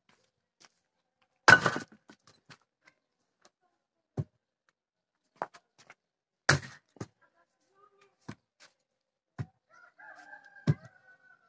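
An axe splitting firewood logs on a chopping block: a string of sharp chops and wooden knocks, the two loudest about a second and a half in and again past the middle. Near the end a rooster crows.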